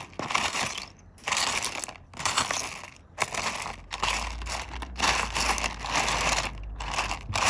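Small pieces of rough opal rattling and clattering as they are stirred and rolled around in a dish, in repeated bursts about once a second.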